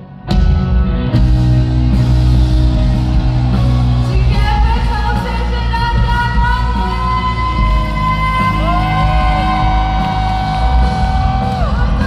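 Live pop concert: the band music comes in loudly about a third of a second in, and a female singer's voice holds long notes over it from about four seconds in, in a large hall.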